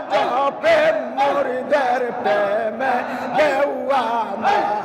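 Men's voices chanting a devotional zikr song together, a lead singer on microphone with the group joining in, in a continuous melodic line that rises and falls.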